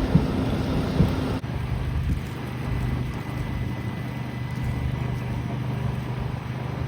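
Steady low outdoor rumble of city street noise, with evenly spaced thumps that stop at an abrupt change about a second and a half in.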